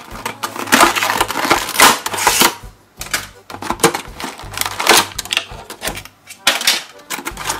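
Clear plastic blister packaging and its cardboard backing card crackling and crinkling as they are pulled apart and handled. The crackling comes in bursts, with a short lull about three seconds in.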